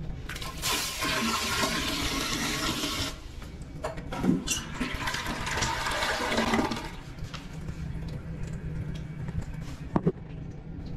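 Toilet flushing: water rushes for a few seconds, then a second surge of water a little over a second later that dies away. A single sharp knock near the end.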